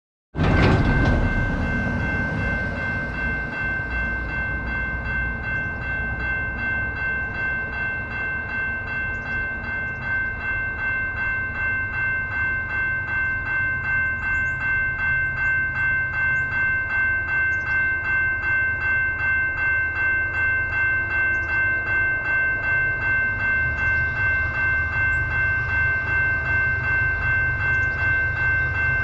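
Railway level-crossing warning bell ringing steadily in an even, repeating rhythm, signalling an approaching train, over a low rumble.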